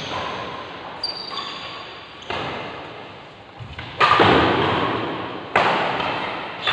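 Badminton rally: rackets hitting the shuttlecock with sharp smacks about every second and a half, each one echoing and fading in a large hall, the loudest about four seconds in.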